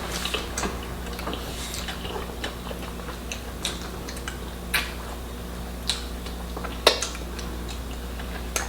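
Eating sounds of a person chewing meat: soft mouth clicks, with a few sharper ticks now and then, over a steady low hum.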